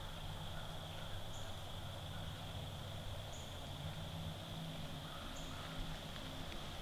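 Evening field-edge ambience: a steady high insect drone with a short, high chirp repeating about every two seconds, over a low rumble.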